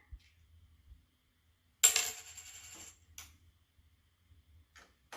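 A coin dropped into a toy vending machine: one sharp clink about two seconds in that rings for about a second, then a short click and a few faint clicks as the mechanism works.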